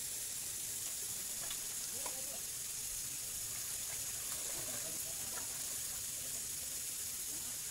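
Steady high-pitched hiss of outdoor ambience, with faint, scattered chatter of people in the background.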